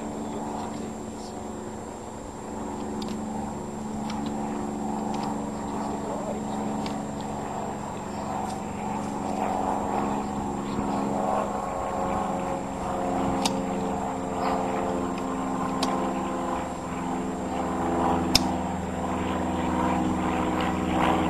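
A motor running steadily with a low, even drone that grows a little louder, and a few sharp clicks in the second half.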